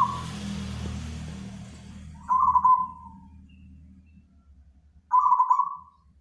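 Zebra dove (perkutut) cooing: the tail of one coo phrase at the start, then two more full phrases about three seconds apart, each a short, rolling coo lasting about a second.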